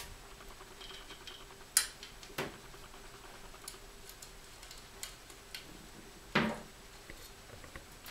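Light clicks and clinks of a folding knife being taken apart by hand, its small metal parts and tools handled and set down. A few sharper knocks stand out, the loudest about two seconds in and again past six seconds.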